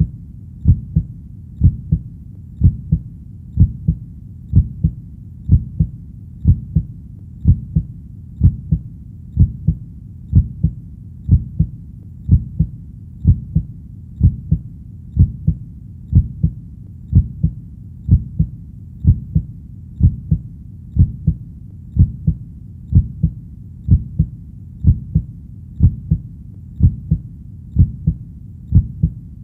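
Heartbeat sound: a steady lub-dub double thump about once a second, low-pitched, over a faint low rumble between beats.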